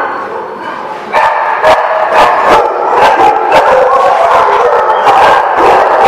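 Dogs barking and yipping in a dense, overlapping din. It is softer for about the first second, then loud and unbroken.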